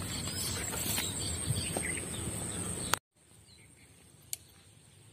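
Outdoor ambience of a steady high-pitched insect drone with a few faint bird chirps and light clicks. About three seconds in it cuts off abruptly to a much quieter background, with a single sharp click a little later.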